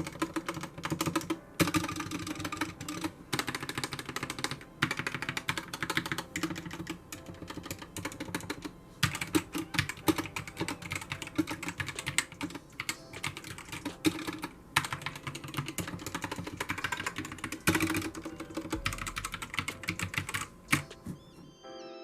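Typing on a GK61 60% mechanical keyboard with Gateron optical red switches: a fast, dense clatter of keystrokes in runs with brief pauses between them.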